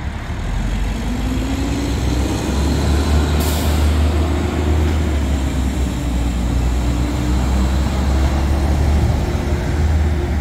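Elevated passenger train crossing the overpass: a steady, loud low rumble with a steady hum above it, and a brief hiss about three seconds in. A tractor-trailer passing near the end adds road noise.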